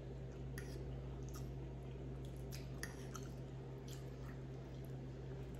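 A person chewing a mouthful of food: faint, wet mouth clicks and smacks about once a second over a steady low hum.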